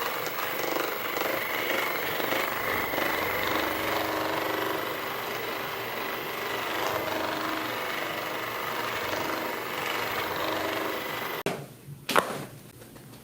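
Electric percussion massage tool hammering steadily with a rapid rattle and a faint motor whine. It cuts off abruptly near the end, followed by a single sharp knock.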